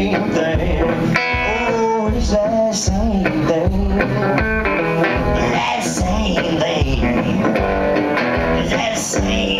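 Electric guitar playing a blues song live through an amplifier, over a steady low beat about twice a second.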